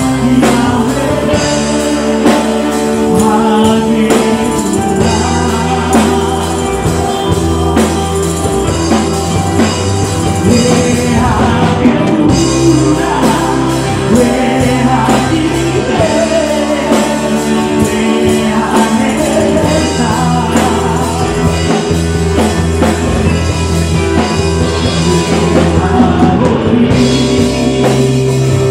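Live worship band with electric guitar playing a Hebrew worship song while a man sings lead into a microphone.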